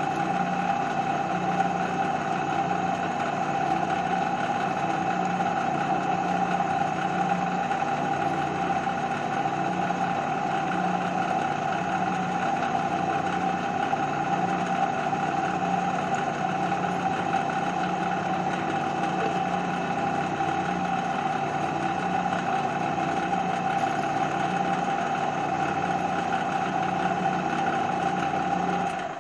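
Drill press running steadily with a strong, even whine, its bit drilling into stainless steel.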